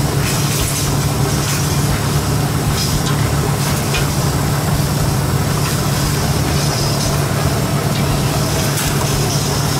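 Steady low mechanical drone of a machine running, unchanging throughout, with a few faint clicks on top.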